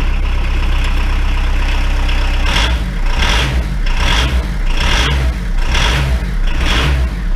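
VW Polo 6N's petrol engine idling, then revved in short repeated blips, roughly one a second, from about two and a half seconds in, with a rough, heavy note that sounds like a diesel truck. The car is running right after its rebuilt 085 gearbox was refitted and all the gears were found to engage.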